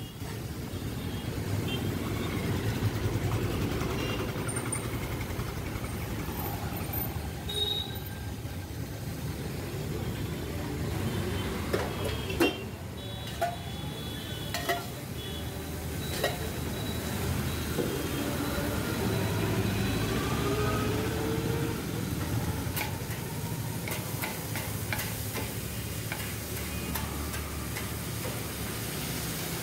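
Chopped onion and tomato sizzling on a flat iron griddle as they are stirred, with scattered sharp clinks of a metal spatula against the griddle, mostly in the second half, over a steady low rumble.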